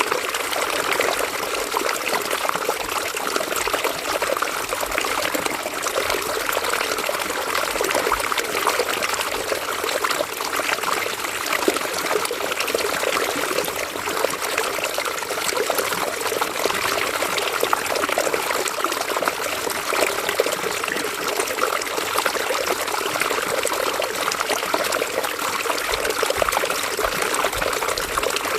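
River water running and trickling over stones, a steady bubbling splash with no pauses.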